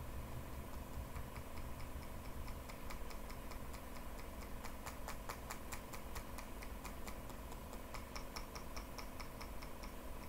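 Rapid, evenly spaced light clicks from a computer mouse, about five to seven a second. They start about a second in and stop near the end, over a faint steady electrical hum.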